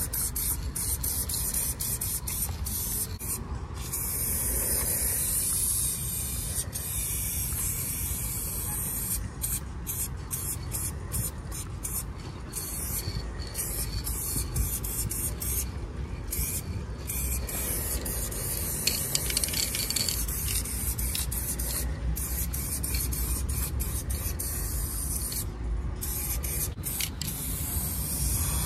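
Aerosol spray paint cans hissing in many short and longer bursts, starting and stopping again and again, over a steady low rumble.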